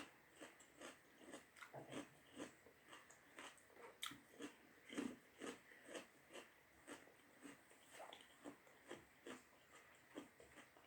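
Quiet, steady chewing of a mouthful of rice, a short wet mouth sound about two to three times a second.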